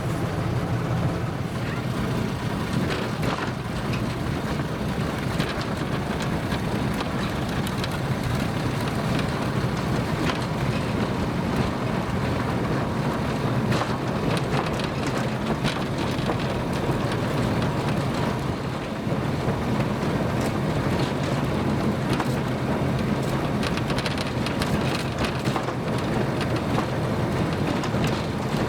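Narrow-gauge forest railway train running, a steady low rumble with many irregular clicks and rattles throughout.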